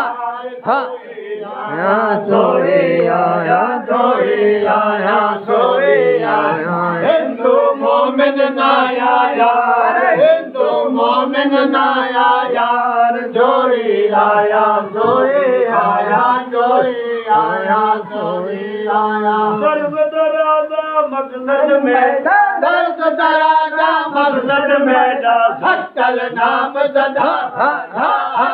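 Male voices singing a Sindhi Sufi kafi in a chanting style, with long held notes that waver up and down.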